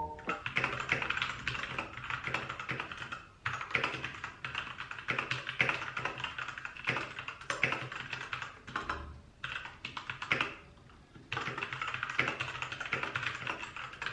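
Typing on a Royal Kludge RK61 mechanical keyboard with brown switches: rapid, irregular keystroke clacks in runs, with short lulls about three seconds in and again around ten seconds in.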